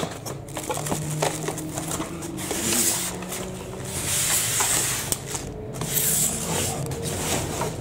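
Plastic wrapping crinkling and polystyrene foam packing scraping against cardboard as a record player is slid out of its shipping box. The rustling goes on throughout, heaviest around the middle.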